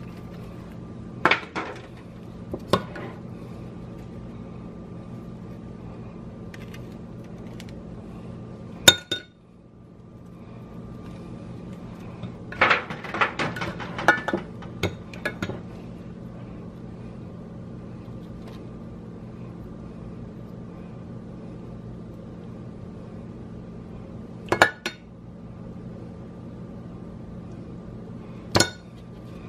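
Scattered clinks and knocks of dishes and utensils during sandwich assembly, the sharpest about nine seconds in and a cluster of them around thirteen to fifteen seconds, over a steady low hum.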